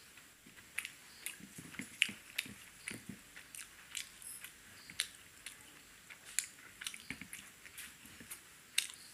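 A man chewing food eaten by hand, with many irregular, quick wet clicks and smacks of the mouth.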